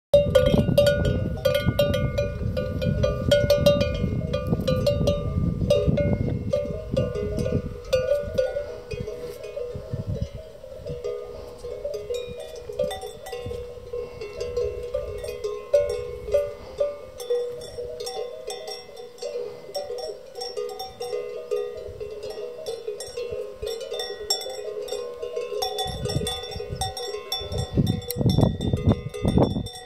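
Many cowbells on grazing cows clanging and tinkling at once, the bells out of tune with one another, ringing on and off irregularly as the cows move. A low rumble runs under them, heaviest in the first ten seconds and again near the end.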